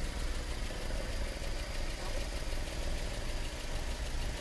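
A steady, even engine hum with a low rumble, like an engine idling.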